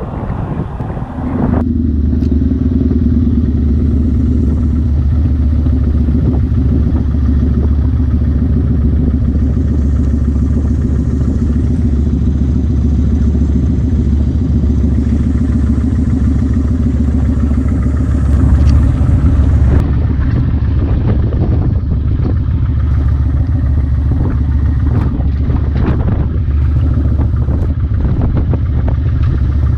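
Motorcycle engine running steadily under way, a low steady drone that comes in about a second and a half in.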